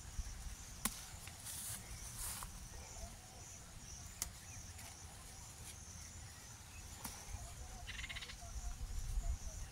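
Crickets chirring steadily in the background, with a few sharp clicks and a couple of brief rustles in the first few seconds.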